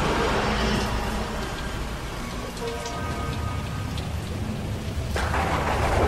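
Rain falling steadily under a low rolling rumble of thunder, with a sudden loud thunderclap about five seconds in.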